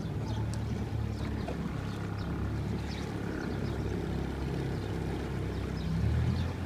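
Small tour boat's engine running steadily, a low hum.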